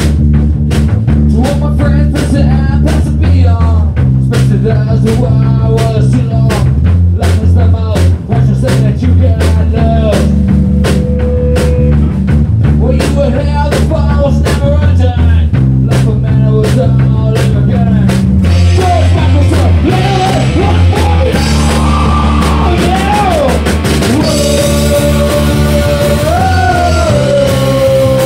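A rock band playing live in a room: electric guitars, bass guitar and a drum kit on a steady beat, with a man singing into a microphone. About two-thirds of the way through, the cymbals open up into a heavier wash.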